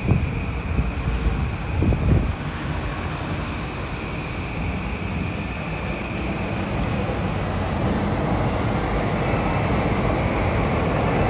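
Steady vehicle rumble that grows slowly louder through the second half, with faint high ticking near the end.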